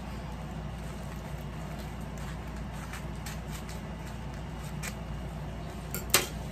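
Wrapping on a fishing rod rustling and crinkling as it is pulled off by hand, with a few light crackles and one sharp crackle near the end, over a steady low hum.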